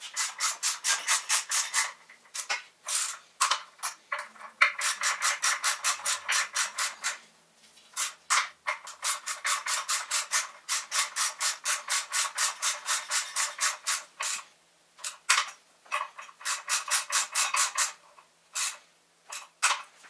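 Ratchet wrench with a hex bit socket clicking in quick runs of about four to five clicks a second as the hub motor's bolts are driven in, with short pauses between runs and a few single clicks near the end.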